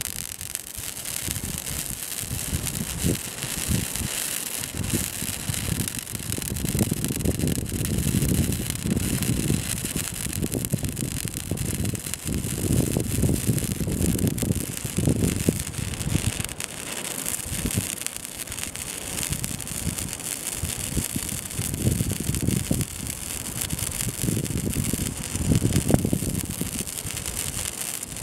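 Wire-feed welding arc sizzling continuously as a seam is run along the joint between two steel shipping-container roofs.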